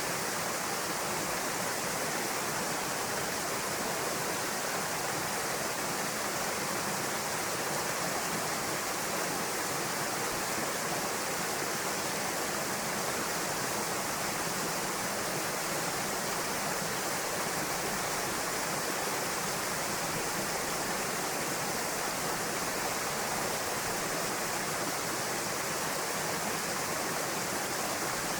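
Waterfall pouring into a pool: a steady, even rush of falling water that does not change.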